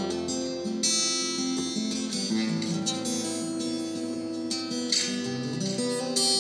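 Acoustic guitar played solo: picked and strummed chords whose notes ring on between strokes, with fresh attacks about a second in, past two seconds and around five seconds.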